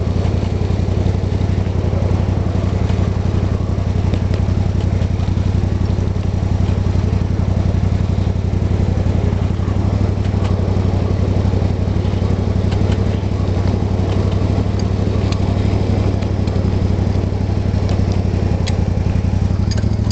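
Small engine of a ridable 1/8-scale F7A-outline locomotive running steadily as it pulls the train, with a few light clicks over it in the second half.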